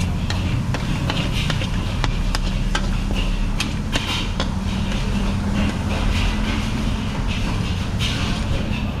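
Metal ladle and spatula scraping and clanking against a steel wok, many irregular clanks, as noodles with egg are stir-fried with some sizzling. Under it runs a steady low rumble, from the gas wok burner.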